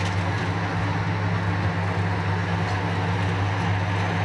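Large bulldozer's diesel engine running with a steady low drone.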